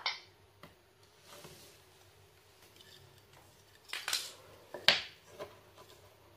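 A small wooden speaker box and its wired circuit board being handled on a wooden tabletop: a few light knocks and clicks, with a short clatter about four seconds in and a sharp click about a second later.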